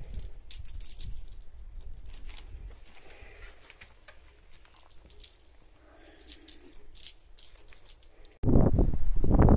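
Light scuffs and scattered clicks from a cat wrestling a feather wand toy on concrete pavement. About eight seconds in, loud wind buffeting the microphone cuts in suddenly.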